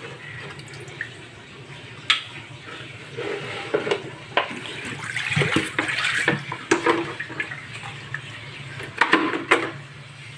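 Water sloshing and splashing in a plastic container as a hand rinses hermit crabs in it, with a few sharp knocks against the plastic.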